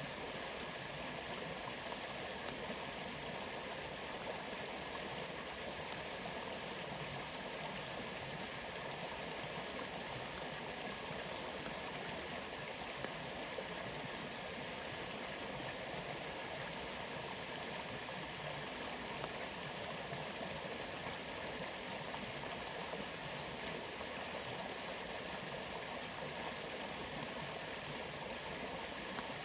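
Waterfall and stream water rushing in a steady, even hiss that does not change.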